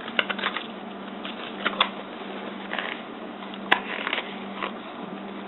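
Cardboard and paper packaging being handled, with scattered rustles and short clicks and one sharper tap a little past halfway. A faint steady low hum runs underneath.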